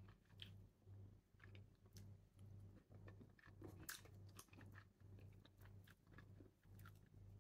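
Very faint chewing of sweet tamarind and sticky rice, pulsing about two times a second, with a few soft clicks from tamarind pods being broken and peeled by hand.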